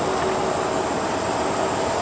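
Ikarus 256 bus cruising at speed, heard inside the cabin: a steady drone of engine and road noise with the howl of the RABA rear axle running through it as a steady whining tone.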